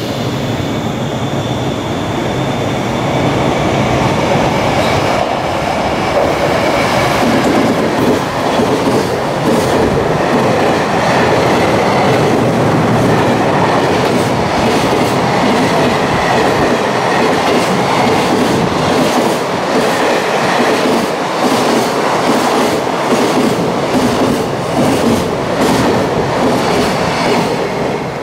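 Long freight train of empty container flatcars passing close by at speed: a steady rumble of steel wheels on rail that builds over the first few seconds, with rapid clicking of wheels over rail joints in the second half, dropping away near the end as the last wagon clears.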